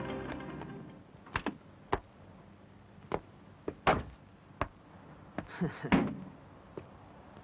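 Background music fading out, then a series of sharp knocks and thuds at uneven intervals, the loudest about four and six seconds in.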